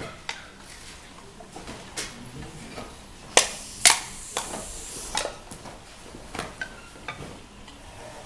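Sharp, scattered slaps and snaps of a martial artist performing the pencak silat open-hand form (Jurus Tunggal), the two loudest close together about three and a half seconds in.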